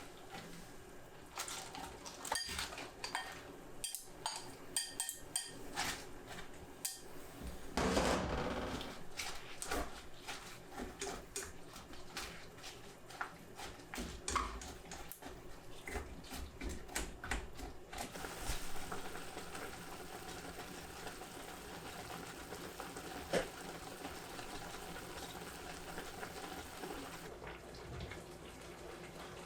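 Home kitchen clatter: dishes, pots and utensils knocking and clinking with many small sharp clicks, with one louder scraping rush about eight seconds in. From about eighteen seconds in, a steady hiss takes over.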